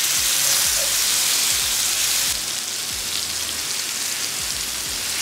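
Yogurt-marinated tandoori chicken thighs sizzling as they sear in hot olive oil in a frying pan over medium-high heat, while more pieces are laid in with metal tongs. The sizzle is steady and drops slightly about two seconds in.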